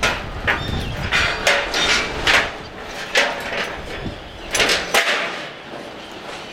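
Metal fairground-ride parts being handled during assembly: an irregular string of sharp metal knocks and clanks, several ringing briefly.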